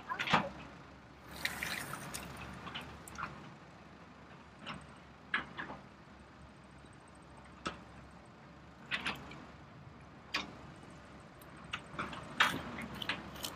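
Plastic toy dump truck being handled by hand, with small stones and rubble rattling against it: scattered short knocks and scrapes, a little louder near the start and near the end.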